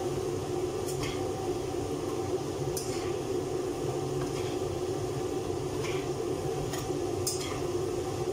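A metal spatula stirring food frying in oil in a wok, with a few sharp clinks of metal on the pan. Under it runs a steady low hum.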